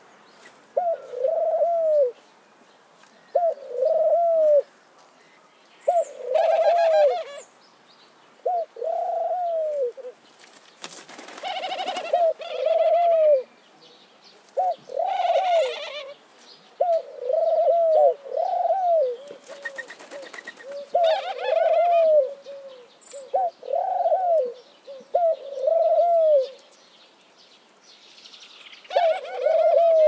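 Dove cooing: a steady run of short, low, arched coos, roughly one every two seconds. A few brief rustling bursts are mixed in between about six and twenty-one seconds in.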